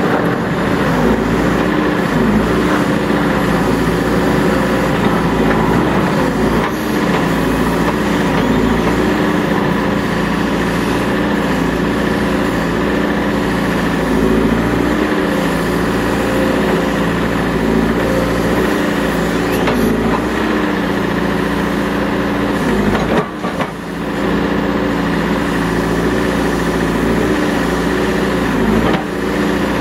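Diesel engine of a CAT 420E IT backhoe loader running hard, its pitch dipping and recovering every few seconds as the engine takes hydraulic load from the loader or backhoe being worked. There is a short knock about two-thirds of the way through.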